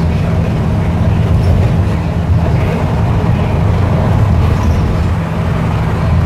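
Bus running at highway speed, heard from inside the passenger cabin: a steady, low engine and road rumble.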